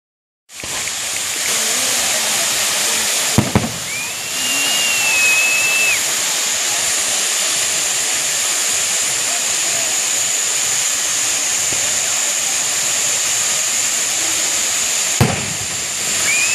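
Cold spark fountain machines hissing steadily. There is a sharp thump about three and a half seconds in and another near the end. A high whistle-like note, rising, held and falling, sounds for about two seconds early on and briefly again at the end.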